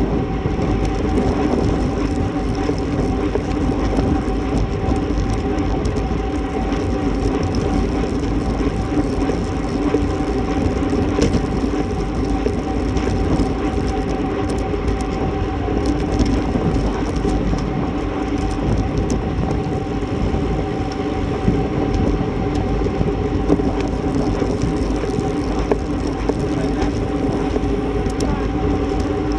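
Steady wind rush and tyre rumble on a bike-mounted camera of a road bike riding at about 25 mph, a constant drone with a held hum, and a few faint clicks.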